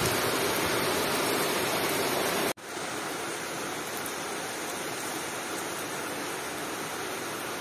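Steady rain falling, an even hiss. It cuts out for an instant about two and a half seconds in, then goes on a little quieter.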